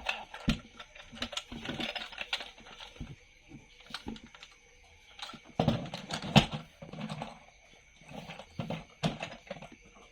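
Irregular clicking, tapping and rattling of hard plastic being handled, such as toy vehicles and their packaging being picked up and set down.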